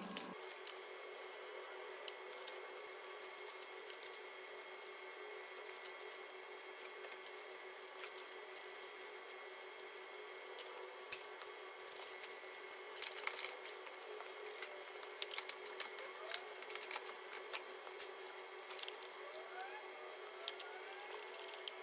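Faint clicks and clatter of hand work on plastic and metal engine parts as the timing-belt components and cover are refitted, in sped-up footage over a steady hum. The clicks come in busy clusters partway through, with a few short rising whines near the end.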